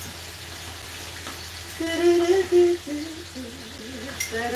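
A woman humming and drawling a drawn-out "there" while she works, over a faint hiss of chicken frying in the pan. A utensil clinks against the pan near the end.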